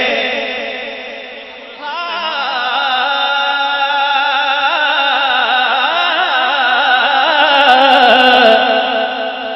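A man singing devotional Punjabi verse into a microphone over a sound system. The previous phrase dies away, then about two seconds in he launches into one long, drawn-out line whose pitch wavers and ornaments as he holds it, until it fades near the end.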